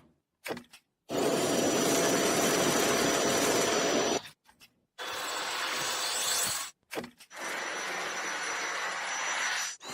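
Cordless vacuum cleaner running with a steady airflow rush and a thin high whine, in three separate stretches that start and stop abruptly, about three seconds, two seconds and two and a half seconds long.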